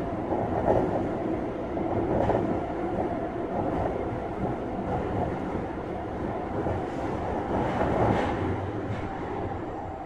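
Kyoto Municipal Subway 20 series train running through the tunnel, heard from inside the car: a steady rumble of wheels and running gear, with a few brief louder knocks.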